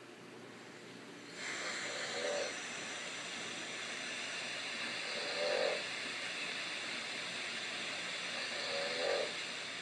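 A baby's snore-like breaths, three short ones about three and a half seconds apart, heard through a baby monitor speaker over a steady hiss that comes on about a second in.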